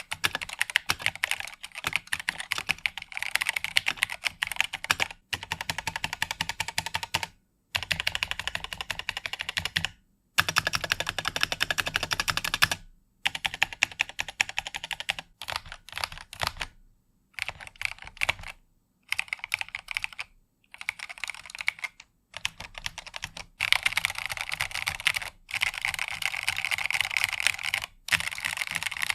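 Typing on a LeleLab Y2K 76 mechanical keyboard with LeleLab Crystal linear switches on an FR4 plate, in an open, caseless through-hole build. Fast runs of keystroke clicks, broken into many stretches by brief pauses.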